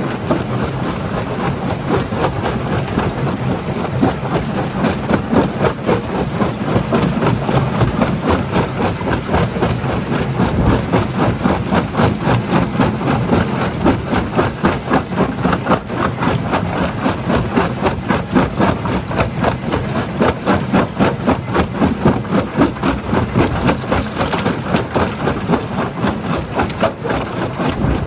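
Stone crusher running under load: a steady heavy machine drone with a dense, irregular clatter of rock being broken.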